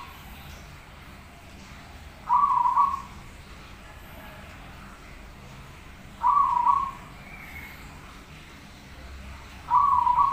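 Zebra dove (perkutut) cooing: three short, broken coo phrases, each under a second long, about four seconds apart.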